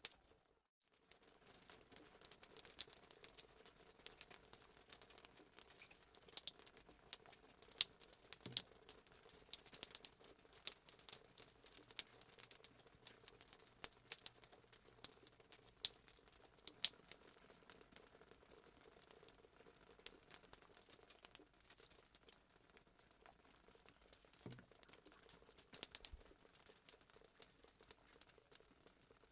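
Fireplace sound effect: a wood fire crackling with frequent small irregular pops and snaps over a faint steady hiss. The sound drops out briefly about half a second in, then resumes.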